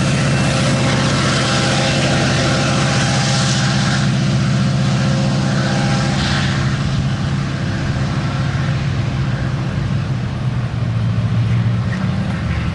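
Wheels of the last cars of an empty freight coal train rumbling over the rails and fading away after about six seconds, over the steady low hum of a vehicle engine idling close by.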